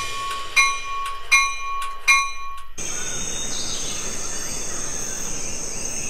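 Four ringing bell-like chimes about three-quarters of a second apart. Then, just under three seconds in, an abrupt cut to a steady high chirring of night insects, like crickets.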